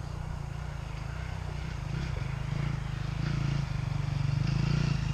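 Dirt bike engines approaching along the track, the pulsing engine note growing steadily louder.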